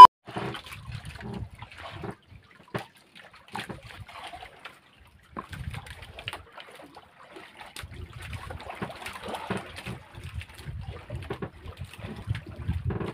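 Water lapping and trickling against the hull of a small outrigger fishing boat, faint, with scattered small clicks of fishing line and tackle being handled; a low rumbling noise joins in about eight seconds in.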